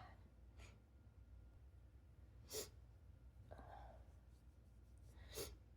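Near silence broken by two short sniffs, about two and a half seconds in and near the end, with a soft breath between them, from a person sniffling in the middle of a sneezing fit.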